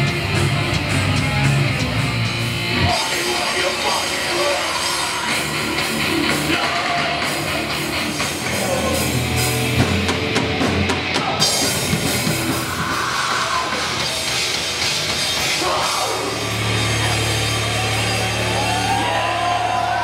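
Heavy rock band playing: distorted electric guitars, bass and drum kit, settling on a held low note near the end.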